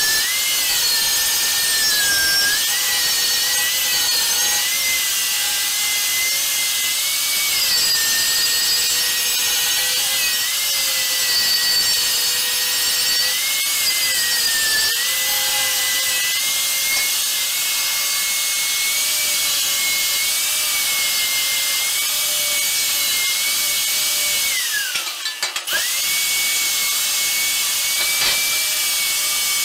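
Angle grinder cutting and grinding the edge of a steel fender, its motor whine dipping and recovering as it bites into the metal. About 25 s in it briefly slows and spins back up, and near the end it winds down.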